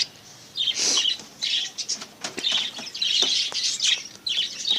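A flock of budgerigars chirping and chattering, with a few brief flutters and clicks among the calls.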